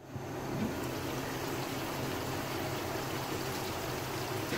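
Chicken pieces in a tomato-and-spice masala bubbling and sizzling steadily in a wok, with a faint low hum underneath.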